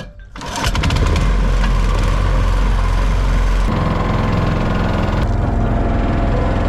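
Small single-cylinder petrol engine on a wooden boat being started, catching about half a second in and then running steadily at speed as it drives the boat.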